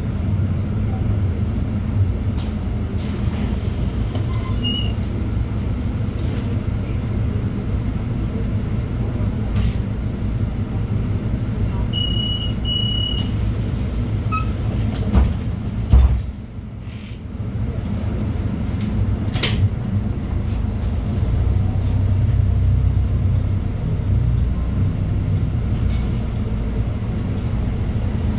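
City bus running, heard from inside the cabin: a steady low engine hum with scattered rattles and clicks. Two short high beeps come about twelve seconds in, and a thump around sixteen seconds is followed by a brief drop in the engine noise.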